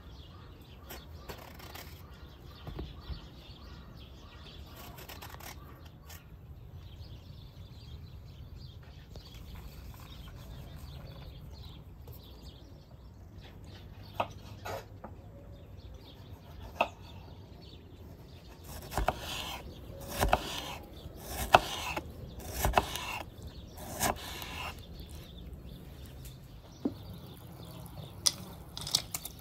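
Kitchen knife cutting peeled eggplant on a wooden cutting board: a few soft cuts and taps at first, then a quick run of sharp knocks of the blade on the board about two-thirds of the way through, with a couple more near the end.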